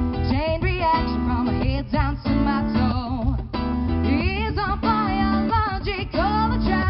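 Live band music: a woman singing, with a gliding, drawn-out vocal line in the middle, over acoustic guitar and electric bass guitar.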